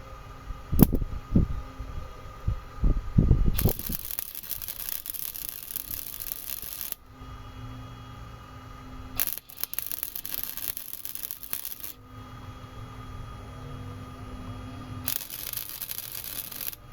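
Electric welding arc hissing and crackling in three runs of a few seconds each, starting about 4, 9 and 15 seconds in, as a bracket is welded onto a bicycle frame. A few sharp metal knocks come before the first run, and a low steady hum fills the gaps.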